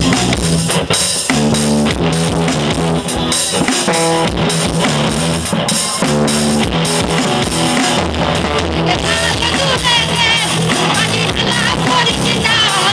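Live band playing: electronic keyboards, guitar and drums over a steady bass line. A wavering high melody line comes in about nine seconds in.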